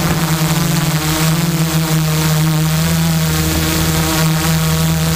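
Electric motors and propellers of a Tarot-frame multirotor drone in flight, heard from the camera on board: a loud, steady buzz with a strong hum whose upper tones waver slightly in pitch.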